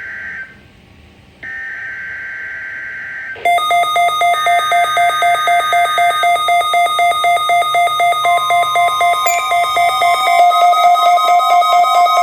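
NOAA Weather Radio SAME alert header: harsh two-tone digital data screeches, one ending about half a second in and another lasting about two seconds, sent for a Required Weekly Test. From about three and a half seconds on, music with a fast, even pulse and several held notes takes over, louder than the data bursts.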